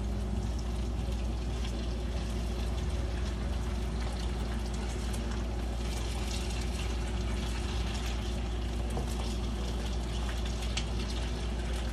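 Potatoes frying in a skillet: a steady sizzle with crackles and the scrape and tap of a spatula turning them, over a steady low hum.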